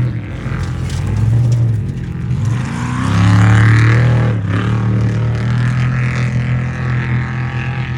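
Off-road race truck engines running hard, rising in pitch and loudest about three to four seconds in, then dropping sharply in pitch as a truck goes by.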